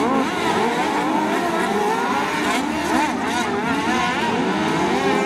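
Several racing ride-on lawn mowers' engines running hard together as a pack, their pitches rising and falling over one another as the riders accelerate and back off.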